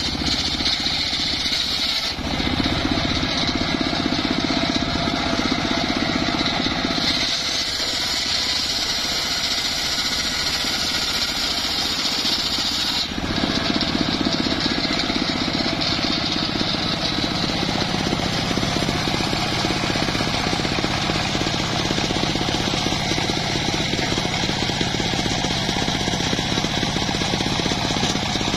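Homemade circular saw bench ripping logs of very hard timber into planks. The blade makes a loud, high cutting noise over the steady low drone of the saw's drive, and the tone shifts about 2, 7 and 13 seconds in as the cut changes.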